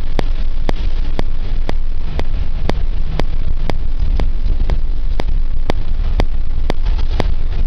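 Steady low rumble of a moving vehicle with wind buffeting the microphone, and sharp, evenly spaced ticks about twice a second.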